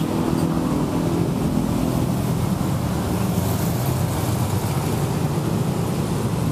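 Road traffic beside a city street: a motor vehicle's engine running close by with a steady low hum, over the general noise of passing traffic.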